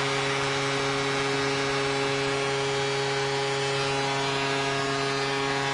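Arena goal horn blowing one long, steady blast at a single pitch, signalling a home-team goal.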